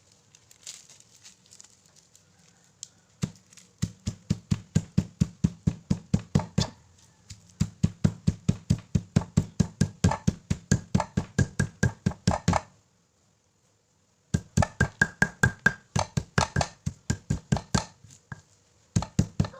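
Pestle pounding spices in a mortar: a steady run of knocks about three a second, which stops for a moment about two-thirds through and then starts again.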